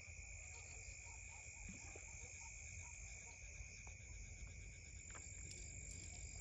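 Faint, steady high trilling of night insects, with a few scattered faint frog calls.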